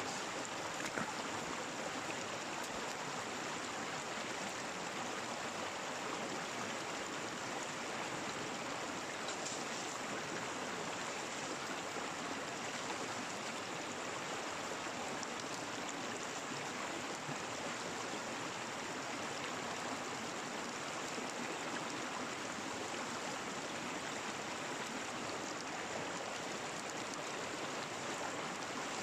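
Stream water running steadily, an even rushing that does not change.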